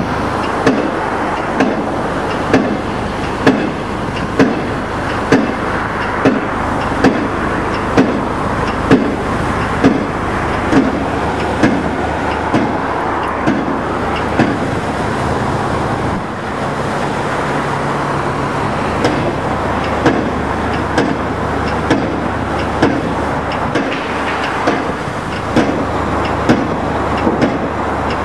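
Steel sheet piles being driven by a crane-suspended pile hammer: a sharp blow about once a second, over the steady running of the site machines' diesel engines.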